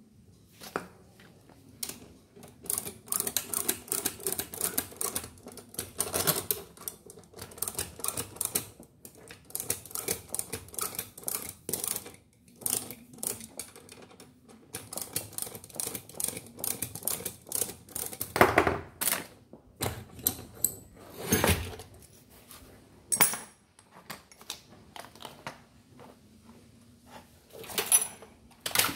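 Dense, irregular clicking and tapping of small metal parts and hand tools being handled during disassembly, with a few louder metallic knocks that ring on, about two-thirds of the way in and again near the end.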